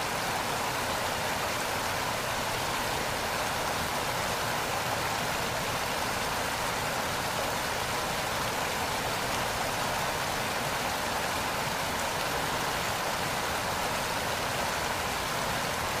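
Mantokha waterfall falling down a rock face: a steady, unbroken rush of water and spray, mostly high hiss with little low rumble.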